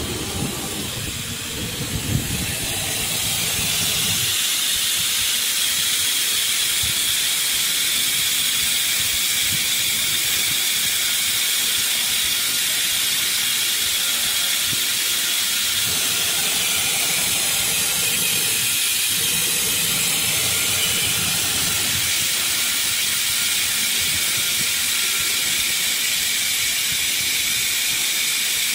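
Spindle of a small automatic-tool-change CNC router running at high speed while it machines a hole in a metal bar: a steady high hiss and whine that builds up over the first few seconds and then holds even, with a single click about two seconds in.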